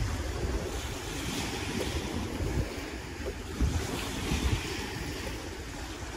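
Wind buffeting the microphone in gusts over the steady wash of small waves on a stony shore.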